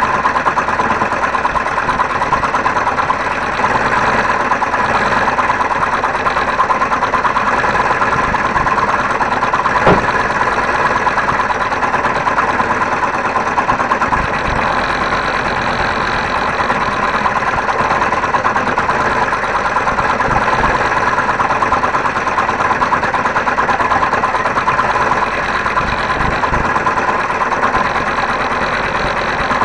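Homemade scroll saw running steadily, its reciprocating blade cutting a wooden board, with one sharp click about ten seconds in.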